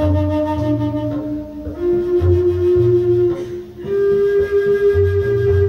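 A wooden end-blown wind instrument playing long held notes that step up in pitch twice, over a repeating low drum beat.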